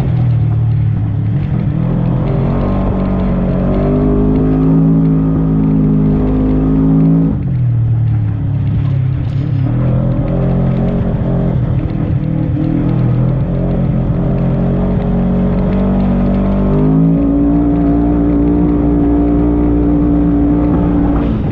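Side-by-side UTV engine driven hard, its revs climbing and falling with the throttle; the engine note drops sharply about seven seconds in and climbs back up near the end.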